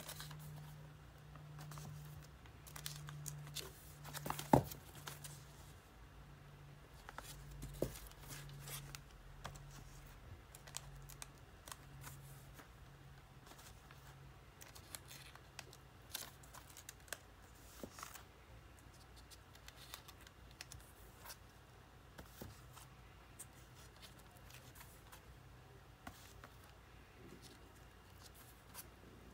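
LP record jackets in plastic outer sleeves being flipped through by hand: soft crinkling and sliding of the sleeves with scattered light taps, and one sharp knock about four and a half seconds in.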